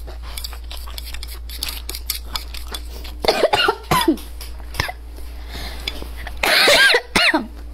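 A woman chewing with small wet mouth clicks, then coughing hard twice, about three seconds in and again near the end, with a voiced catch after each. The second cough is the loudest.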